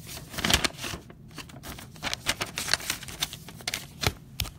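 Trading cards in clear plastic sleeves being handled: a run of quick clicks and crinkles of plastic, loudest about half a second in.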